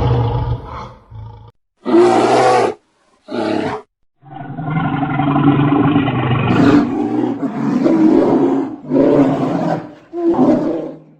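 Lion roaring: a call fading out at the start, two short roars about two and three and a half seconds in, then a longer series of roars from about four seconds in.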